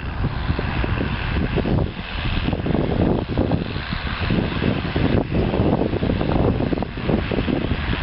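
John Deere 6810 tractor's six-cylinder diesel engine running steadily under load while pulling a plough through the soil.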